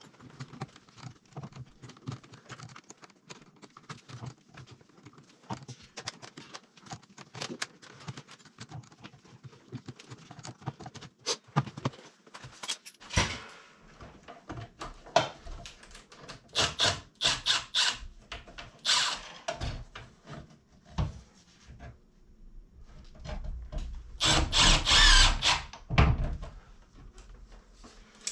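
Hands working a plastic fiber-optic terminal box and flat drop cable: rubbing and small clicks, sharper clacks in the second half, and a louder noisy stretch of about two seconds near the end.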